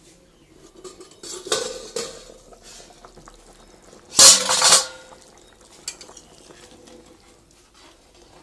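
Steel cookware clattering: a steel plate used as a lid and a metal ladle knocking against a steel kadai of simmering curry. A smaller clank comes about one and a half seconds in and a loud clang about four seconds in that rings on, then light ladle stirring.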